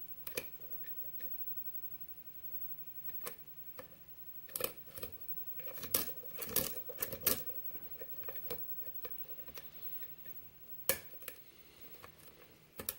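Small metallic clicks and taps of a lock pick and tension wrench working the pins inside a Schlage lock cylinder during single-pin picking, scattered and irregular, with busier clusters about four to seven seconds in and again around eleven seconds.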